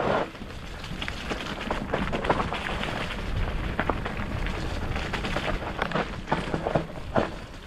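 Mountain bike riding over a rough dirt trail: tyres crackling on dirt and stones, with many short clicks and knocks from the bike.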